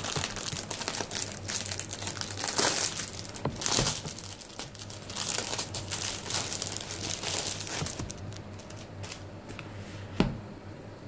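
Clear plastic bag crinkling and rustling as it is pulled off a stack of A5 planner inserts, dying down about eight seconds in. A single sharp knock comes near the end.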